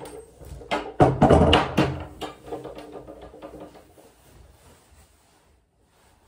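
Clothing rustling with a few knocks as a heavy jacket is pulled on and shrugged onto the shoulders, over a faint held tune; it dies away after about four seconds.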